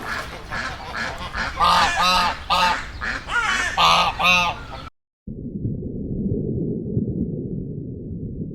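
Repeated short honking bird calls, about six loud ones in three seconds over a busier background of softer calls. About five seconds in they cut off and a steady low rumbling noise follows.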